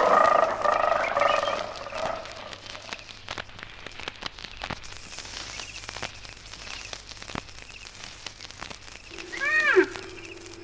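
Wild animal calls: a loud chorus of calls fades away over the first two seconds, followed by quiet scattered clicks. Near the end a single call rises and then falls in pitch.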